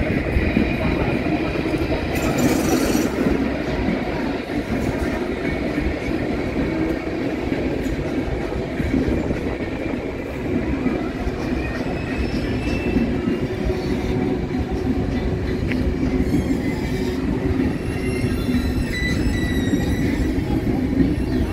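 Passenger train running on the tracks close by: a steady rumble and clatter of wheels on rails, with thin high wheel squeals coming in during the second half.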